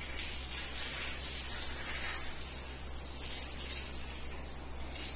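Water spraying from a handheld shower sprayer onto long hair as it is wetted for washing: a steady high hiss of spray.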